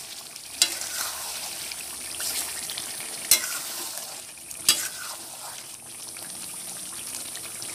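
Chicken curry with potatoes sizzling in a metal kadai while a metal spatula stirs it, scraping through the pan with three sharp knocks against its side. This is the kosha stage, slow-frying the masala-coated chicken.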